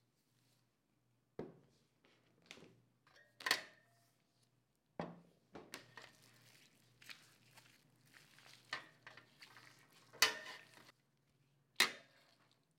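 A 2.5 kg cast-iron weight plate knocking and clanking against a metal wire rack, with five or so sharp ringing knocks, the loudest about three and ten seconds in. Soft rustling and handling of the dough bundle under the weight fills the gaps.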